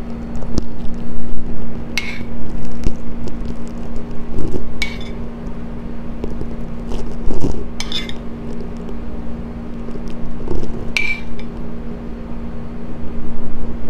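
Metal spoon clinking against a ceramic bowl about four times, a few seconds apart, as thick sauce is scooped and spooned out. A steady low hum runs underneath.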